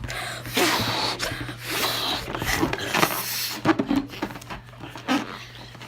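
A child blowing up a rubber balloon: repeated hard puffs of breath into the balloon, with quick gasping breaths between them.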